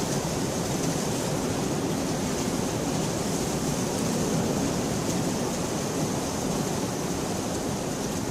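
Steady rain falling on a window, an even hiss with faint drop ticks scattered through it.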